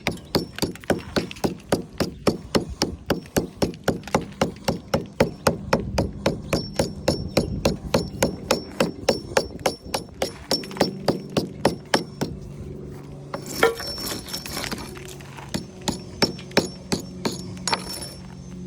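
Hand hammer striking brick and mortar in quick, steady blows, about three a second, breaking out the deteriorated top courses of a chimney. In the last few seconds the blows become fewer and irregular, over a low steady hum.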